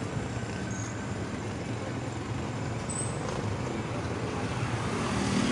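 Steady city street traffic: vehicle engines and road noise, growing a little louder toward the end.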